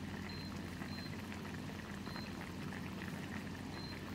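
Chicken curry with added water simmering in a pan on a gas stove, bubbling steadily, over a low steady hum.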